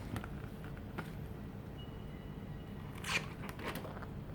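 A printed paper calendar being handled and turned over: a few light taps and clicks, then a short rustling slide of paper about three seconds in.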